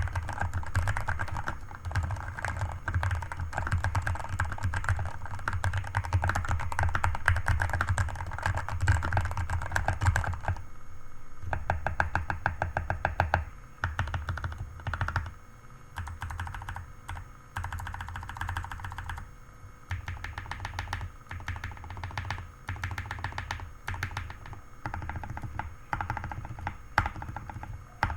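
Redragon Fizz K617 mechanical keyboard with lubed Outemu Red linear switches, PE-foam and tempest mods, modded stabilizers and XDA-profile keycaps, being typed on. Fast continuous typing runs for about the first ten seconds, then gives way to slower keystrokes in short runs.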